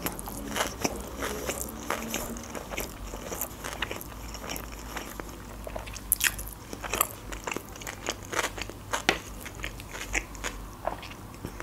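Close-miked chewing of a mouthful of sushi roll: irregular wet mouth clicks and crunches as it is chewed.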